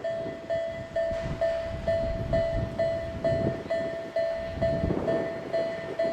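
Japanese level-crossing warning bell ringing steadily, about two strikes a second, while a train runs past with a rumbling wheel noise.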